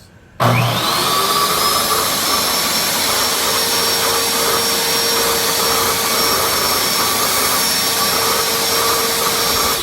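Table saw switched on: its motor whine rises as the blade spins up, then the saw runs steadily at full speed.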